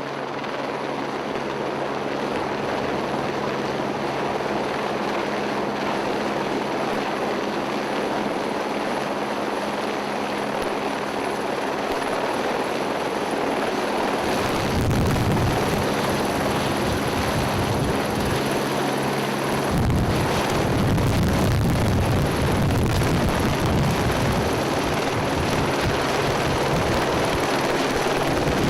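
Helicopter running close by with a steady rotor and engine drone, which grows louder with a deeper rumble about halfway through.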